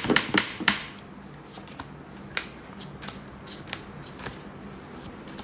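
Light taps and brushing of hands on a tabletop: a few sharper clicks in the first second, then scattered faint ticks over a low steady hum.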